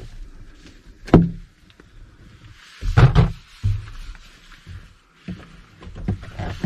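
Knocks and clunks inside a pickup truck's cab: a sharp knock about a second in, a louder clunk near three seconds with a shorter one just after, then a run of small clicks.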